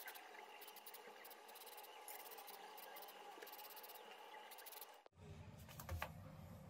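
Near silence: faint room tone, changing at a cut about five seconds in to a faint low hum, with a brief faint click soon after.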